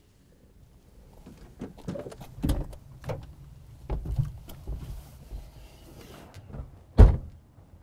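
Knocks and clunks inside a truck cab, scattered from about a second and a half in, ending in one heavy thunk about seven seconds in.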